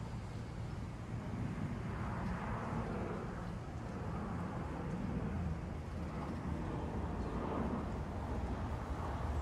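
Outdoor background noise: a steady low rumble with a hiss that swells and fades every few seconds, like distant traffic mixed with wind.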